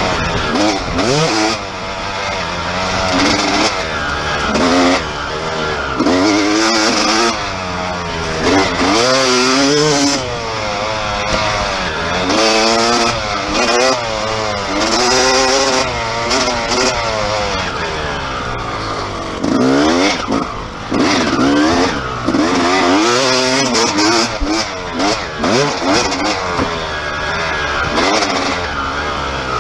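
Dirt bike engine ridden hard, its pitch rising and falling over and over as the throttle is opened and eased off.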